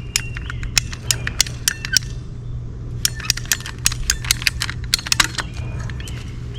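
PVC irrigation pipe being cut: a quick run of sharp clicks and snaps, about three or four a second, pausing about two seconds in and then resuming.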